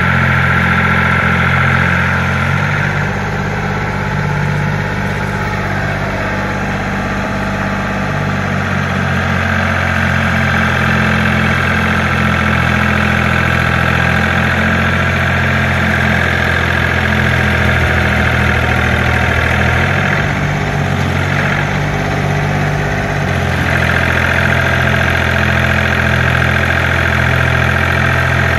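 Compact tractor engine running steadily while working its front-end loader in loosened mud. The engine note changes about two and a half seconds in, and again for a few seconds past the twenty-second mark.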